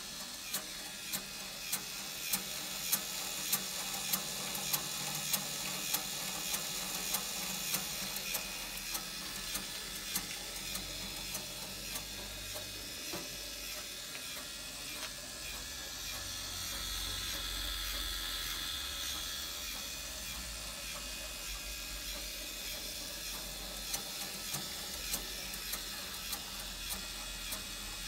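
Rotisserie spit motor ticking with even clicks, about three every two seconds, as it turns the basket, over a steady hiss. The clicks grow faint in the middle, while the grill lid is shut, and come back clearly near the end.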